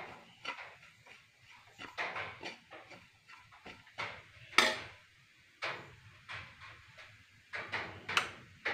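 Metal spoon stirring roasted grated coconut around a frying pan, scraping the pan in short irregular strokes, the loudest about four and a half seconds in.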